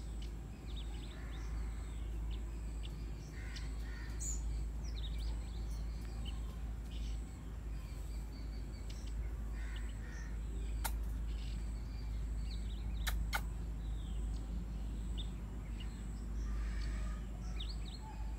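Birds calling around a yard: many short scattered chirps and a few harsher calls, over a steady low rumble, with three sharp clicks past the middle.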